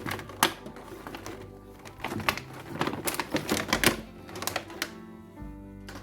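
Background music with a steady tone underneath, over a run of irregular sharp clicks and taps, several in quick succession about two to four seconds in.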